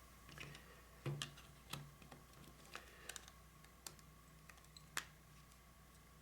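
Faint, scattered small plastic clicks and taps, about eight over five seconds, as the battery is fitted into an LG Revere 3 flip phone.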